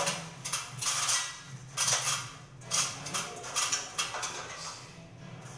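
Irregular sharp metallic clicks and knocks, several in a few seconds, from a window blind's hardware being fitted at the top of a window frame; they die away in the last second or so.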